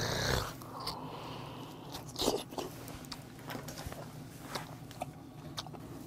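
Close-up chewing and lip-smacking as a wood-grilled oyster is eaten, with a few sharp wet smacks about a second apart, the loudest a little over two seconds in. A loud hiss-like rush fades out in the first half second.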